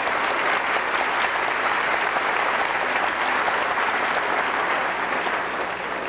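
Large audience applauding, a dense steady clapping that starts to die down near the end.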